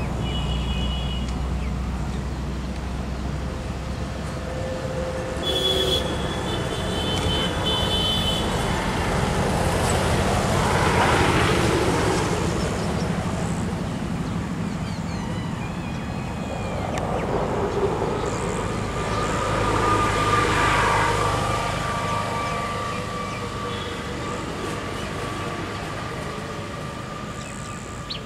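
Road traffic going by steadily, swelling as vehicles pass about eleven and twenty seconds in, with short high horn toots near the start and again around six to eight seconds in.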